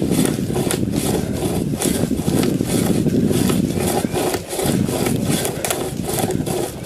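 Hand-powered pocket chain saw being pulled back and forth through a tree limb, with the chain rasping through the wood in a steady, rhythmic stroke.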